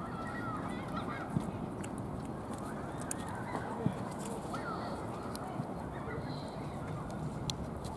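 A cat licking a squeeze-tube lickable treat from a hand, with small sharp clicks of its tongue, over a steady background rush; short bird calls sound now and then in the background.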